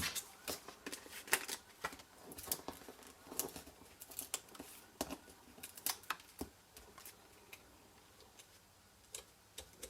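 Light, irregular clicks and rustles of paper craft pieces being handled and pressed into place on foam adhesive pads. The clicks thin out over the last few seconds.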